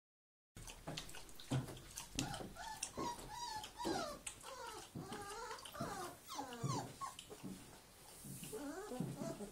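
Samoyed puppies about four weeks old whining and yelping, a string of short cries that rise and fall in pitch, one after another, with a few light clicks among them.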